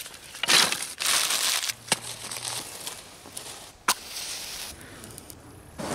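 Dry twigs and leaf litter crunching and crackling as they are handled and stepped on, loudest in the first two seconds, with two sharp clicks about two and four seconds in.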